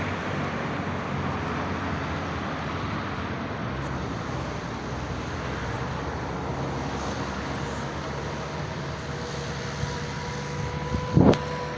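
Steady road traffic noise from a motor vehicle passing on the road, with a steady whine coming in near the end, and a couple of sharp knocks shortly before the end.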